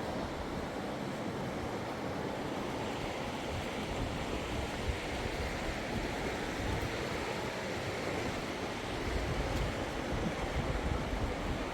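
A steady rushing noise with no distinct events, swelling slightly in low rumble near the end.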